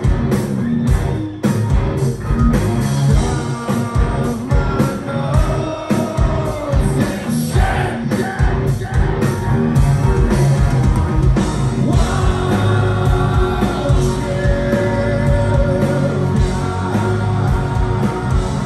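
Live rock band playing: electric guitars, bass guitar and drums, with a lead vocalist singing over them.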